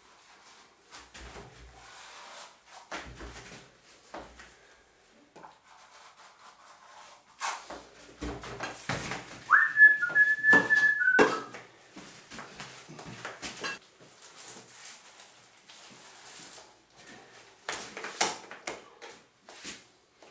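Comb tool scraping and rasping irregularly through thick wet artex texture on a wall. About ten seconds in, a brief whistled note slides up and holds steady for a second or so.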